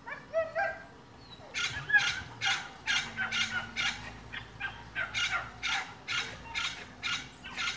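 An animal calling rapidly and repeatedly, about two to three short calls a second, starting up again about a second and a half in.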